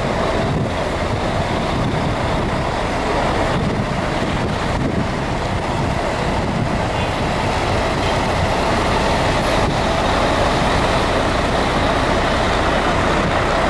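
Idling diesel coach engines at a bus station, a constant low engine noise that grows a little louder in the second half.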